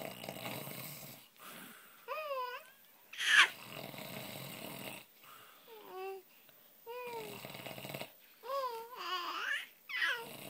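A man snoring, each snore a noisy rasp lasting a second or more, coming about every three seconds. Between the snores a baby babbles and coos in high, wavering sounds, with one sharp rising squeal about three seconds in that is the loudest sound.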